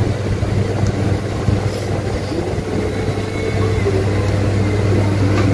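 A steady low engine-like hum runs throughout, with faint voices in the background.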